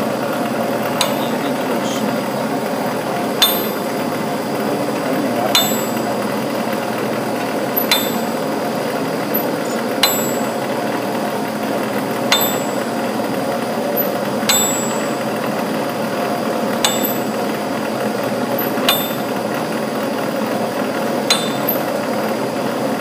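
A home-built rig turning a concrete pipe runs with a steady mechanical noise. Over it comes a sharp metallic knock at a regular beat, about once every two seconds.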